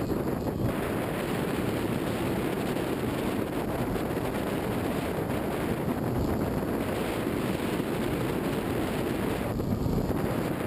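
Steady rush of wind buffeting a camera mounted on the front of a steel roller coaster train at speed, over the rumble of the train running along the track.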